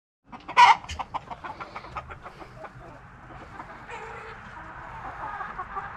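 A flock of young chickens clucking in a pen: one loud call about half a second in, then a quick run of short clucks, settling into a steady hubbub of clucking and peeping.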